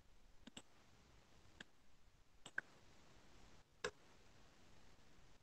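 Near silence with a few faint, separate clicks from a computer keyboard and mouse as code is edited: a close pair about half a second in, then single clicks at about one and a half, two and a half and four seconds.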